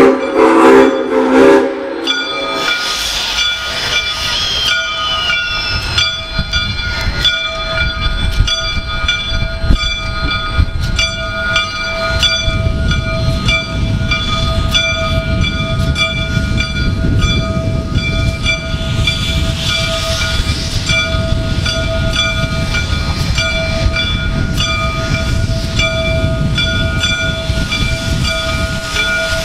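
Steam locomotive's chime whistle sounding a short blast that ends about two seconds in. Then the locomotive bell rings steadily over the low rumble and hiss of the moving train.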